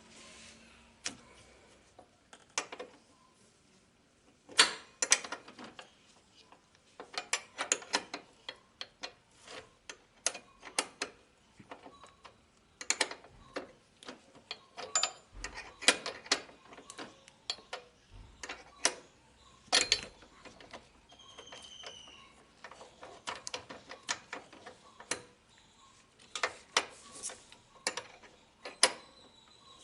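12 mm ratchet wrench clicking in short bursts of rapid clicks with pauses between them, as a car horn's mounting bolt is undone.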